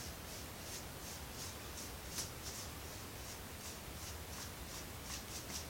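Shaving brush swirling lather, a soft bristly swish about three times a second.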